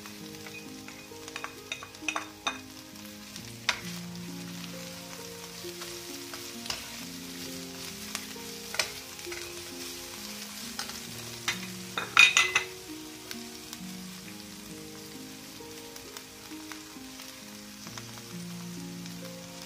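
Sliced chilies sizzling in hot oil in a wok, stirred with a spatula that clicks and scrapes against the pan now and then, loudest in a quick cluster about twelve seconds in. Quiet background music plays underneath.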